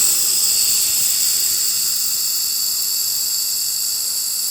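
Steady loud hiss of shielding gas flowing from a laser welding machine's nozzle.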